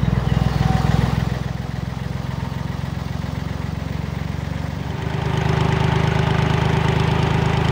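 Canal working boat's diesel engine running steadily at low speed. It gets a little louder about five seconds in.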